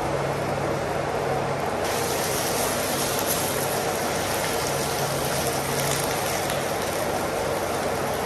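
Steady mechanical drone from a water pump running in a pump house. About two seconds in, a brighter hiss joins it and carries on.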